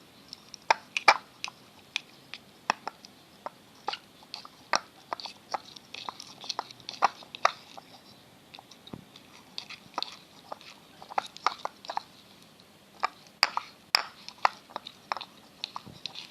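Freshly activated clear-glue slime being stirred with a spoon in a container, giving irregular sticky clicks and squelchy pops; the mix is still very lumpy.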